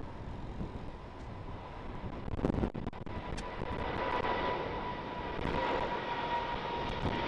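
Jet airliner's engines running: a steady whine over a low rumble, growing louder through the second half.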